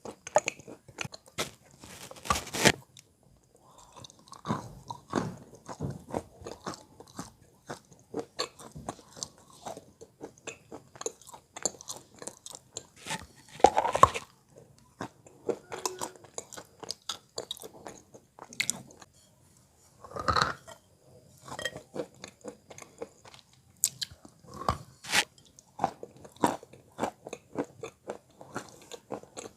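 Wet chalk being bitten and chewed close to the microphone: a run of dull, muffled crunches and small crackles, with a few louder bites about two and a half, fourteen and twenty seconds in.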